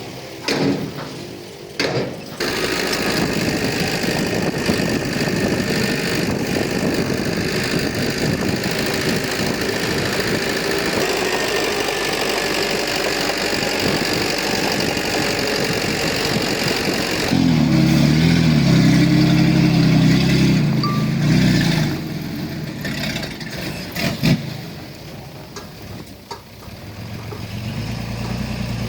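Diesel engine of heavy earthmoving equipment running steadily, with a few sharp knocks in the first two seconds. About 17 seconds in it runs much louder with a wavering pitch for around five seconds, as if under load, then drops back to a quieter run with one knock a couple of seconds later.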